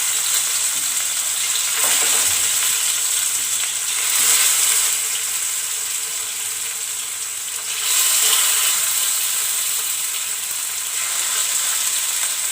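Marinated pink perch sizzling in hot coconut oil in an iron pan. The sizzle is loud and steady and swells a few times, around two, four and eight seconds in, as more fish go into the oil.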